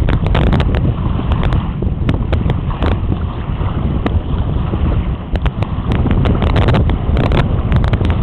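Wind buffeting the microphone: a loud, continuous low rumble broken by many short crackles, in a force 4 breeze on open water.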